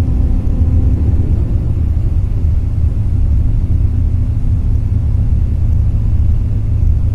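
Steady low road rumble inside a moving vehicle cruising on a highway: tyre and engine noise coming through the cabin, unchanging throughout.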